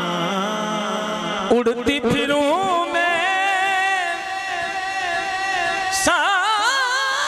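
A man singing a naat, an Islamic devotional song, drawing out long, wavering ornamented notes, with a few brief knocks between phrases about two seconds in.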